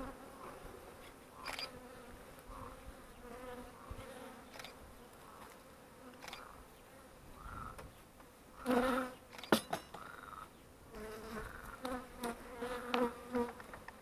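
Honeybees buzzing in a steady hum around an open hive and a frame crowded with bees. Scattered sharp clicks and scrapes come from a knife being worked on the wooden frame and comb. The buzz swells and the clicks are loudest a little over halfway through.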